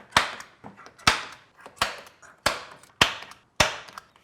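Center punch marking screw holes through a drilling jig: about six sharp, ringing taps, one every half second to a second.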